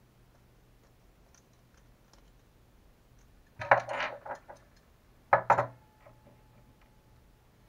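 Small RC shock parts and hand tools clicking and clattering as they are picked up and set down on a work table: a cluster of sharp clicks about three and a half seconds in, and another shorter one about two seconds later.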